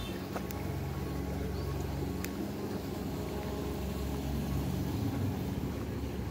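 A motorcycle engine running steadily as it draws near, growing a little louder toward the end.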